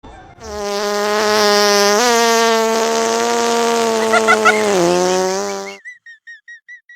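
A long, steady buzzing tone with many overtones for about five seconds, nudging up in pitch once and sagging slightly near its end, then a quick run of about eight short high chirps.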